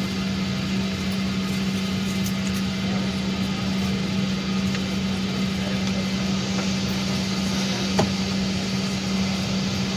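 Steady cabin hum and air rush inside a Boeing 777-200 airliner, with a low drone throughout and a single sharp click about eight seconds in.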